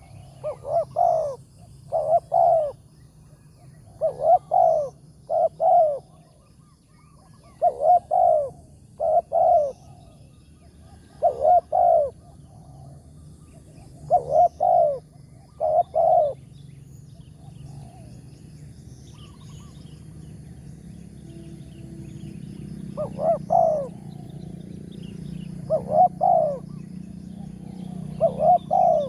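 Spotted dove cooing: loud coos in close pairs, repeated every couple of seconds, a pause of several seconds about halfway, then three more near the end. A low steady hum runs underneath.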